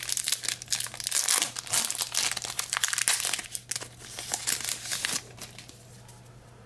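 A trading-card pack's wrapper crinkling as it is torn open and pulled off the cards. The crinkling stops about five seconds in, leaving a faint low hum.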